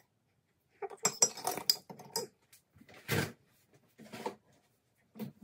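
Metal spoon clinking and scraping against a container: a quick run of sharp clinks about a second in, followed by a few separate duller knocks.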